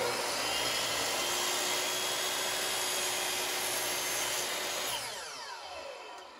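DeWalt miter saw running at full speed as it cuts through a wood strip. About five seconds in the trigger is released and the blade spins down with a falling whine.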